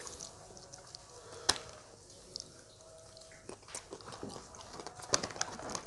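Someone chewing fried duck: quiet, scattered crunches and mouth clicks, the sharpest about a second and a half in and a few more near the end.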